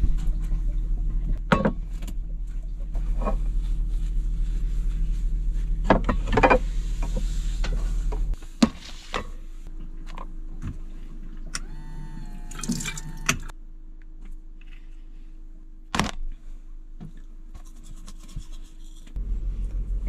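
Dishes being rinsed at a small camper-van sink: running water over a steady low motor hum, with ceramic bowls and utensils clinking. The water and hum stop about eight seconds in, leaving scattered knocks and rustling of things being moved about.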